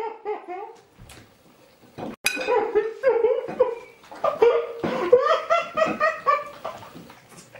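A person laughing hard, in long runs of quick pulses, with a sharp click about two seconds in.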